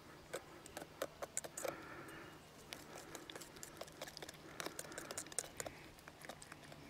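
A utensil clicking and scraping against a stainless steel mixing bowl in quick, irregular taps, as a dessert mix is stirred into thickened cream.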